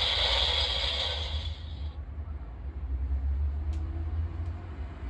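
Dynamaiting Lion Progrisekey toy's electronic sound effect from its small speaker: a noisy hiss that fades out about two seconds in, followed by a low hum and a couple of faint clicks.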